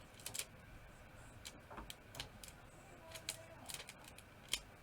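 Faint, irregular small clicks and taps of a diamond painting drill pen picking up resin drills and pressing them onto the glue of the canvas, one sharper tap about four and a half seconds in.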